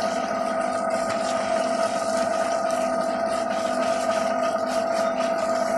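A motor running steadily at one unchanging pitch, a constant mechanical drone, with faint scraping of fish being sorted by hand on top.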